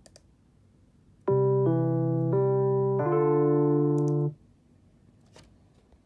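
A song played through a HomePod mini smart speaker: four sustained electric-piano chords that start about a second after a click on play and cut off abruptly about three seconds later when paused. Faint trackpad clicks come before and after.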